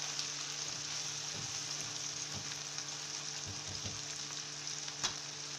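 Chicken pieces and onions sizzling steadily in a frying pan over medium heat, with a steady low hum underneath. A wooden spatula pushes the food with a few soft knocks, and there is one sharp tap about five seconds in.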